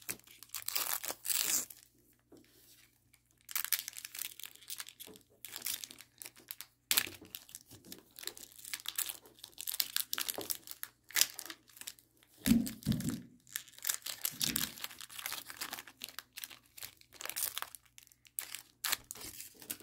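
Foil wrapper of a Pokémon trading card booster pack being torn open and crinkled by hand, in irregular crackling bursts. A couple of duller bumps come about two-thirds of the way in.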